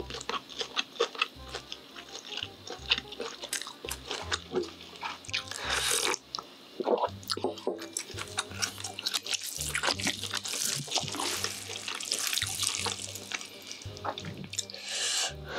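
Close-miked eating sounds of spicy cold buckwheat noodles: wet slurps, chewing and smacking mouth clicks, with a longer slurp about six seconds in. Quiet background music plays underneath.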